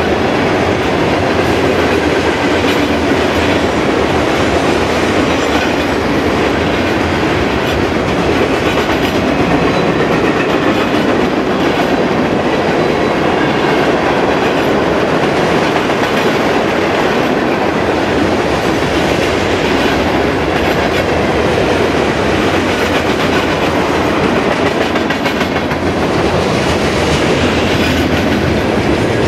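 Freight cars of a Union Pacific manifest train rolling past: loud, steady noise of steel wheels running on the rails.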